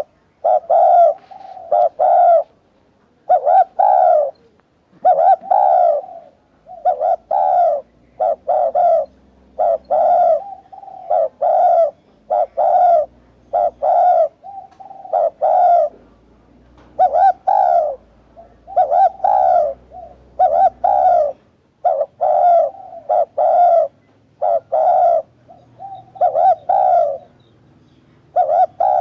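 Spotted dove cooing, repeating its short multi-note coo phrase over and over with brief pauses between phrases.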